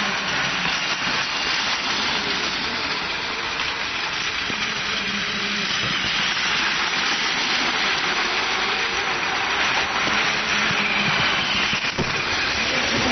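Battery-powered Plarail toy trains running on plastic track: the steady whir of their small motors and gears, with the rattle of plastic wheels on the track.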